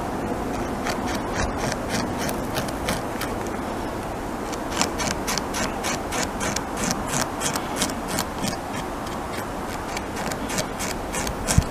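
North American beaver gnawing on a tree trunk with its incisors: an irregular series of sharp wood-chipping clicks, a few a second, growing denser about five seconds in, over a steady background rush.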